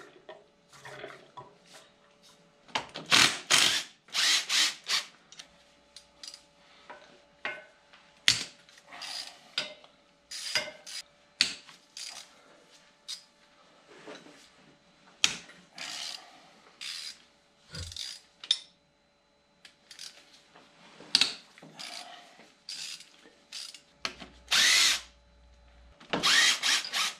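Handheld power driver run in many short bursts of a second or less, spinning bolts off the engine's water pump and fan pulley.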